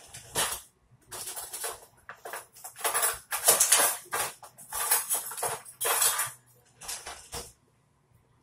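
Close-up crackling and crunching of a boiled lobster tail's shell being worked and pulled apart by hand, in a string of short bursts that stops about a second before the end.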